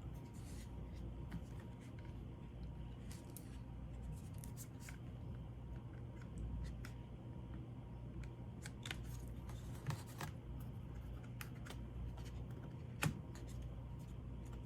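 Small plastic clicks and handling noises as a laptop battery is fitted into the chassis, with one sharper click near the end.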